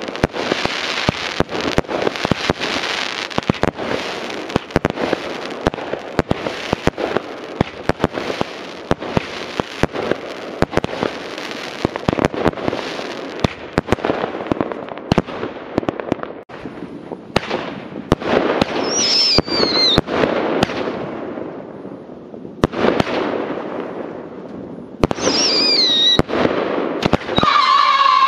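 Consumer firework cake firing: a rapid string of bangs and crackling over a continuous hiss. A descending whistle comes about two-thirds of the way through and another near the end, and a steady high whistle starts just before the end.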